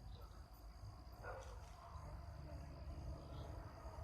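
Quiet ambience: a steady high-pitched insect drone, like crickets, over a low rumble, with a faint soft knock about a second in.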